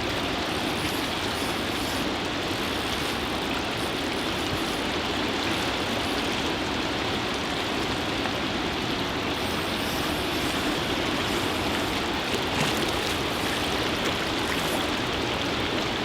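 Steady rushing of running flood water, an even hiss that does not change.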